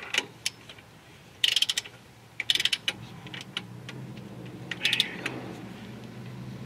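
Ratcheting head of a long-handled torque wrench clicking in three short bursts as it is swung back between pulls, tightening a front disc-brake caliper bracket bolt.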